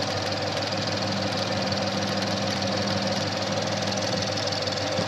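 2013 Mustang GT's 5.0 V8 idling steadily with a rapid ticking, like popcorn popping, whose cause the owner does not know.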